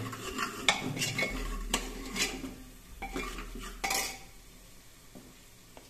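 Metal spoon scraping and clinking against the inside of an aluminium pressure cooker, stirring spice powders into frying onions in irregular strokes; the stirring stops about four seconds in.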